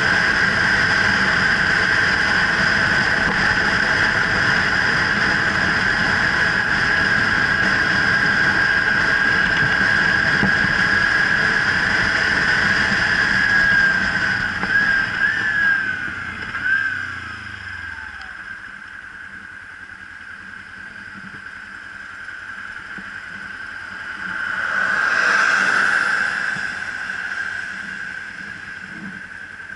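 Kawasaki Ninja 300 parallel-twin engine and wind noise at a steady cruise. About halfway through, the revs fall away in a few sliding steps as the bike slows, and it runs quieter after that. About 25 s in, a brief rush of noise swells and fades.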